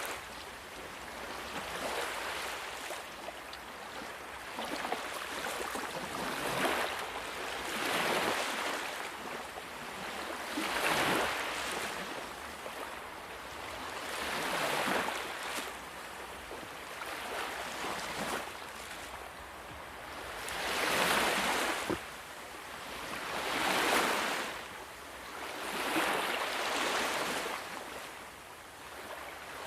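Sea waves washing onto a shore, each surge of hiss swelling and fading away, a new wave every three to four seconds.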